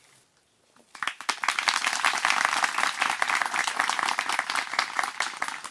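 A crowd applauding, breaking out about a second in and easing off near the end.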